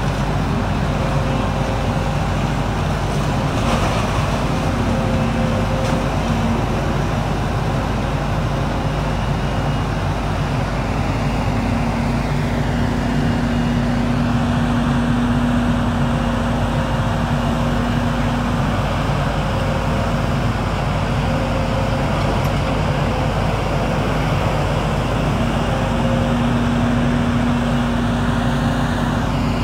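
Volvo tracked excavator's diesel engine running steadily under load as it works a demolition grab. A humming tone strengthens twice, once midway and once near the end.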